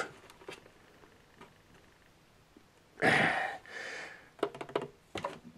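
A person's breath: a short hiss about three seconds in, then a softer one, followed by a few light clicks.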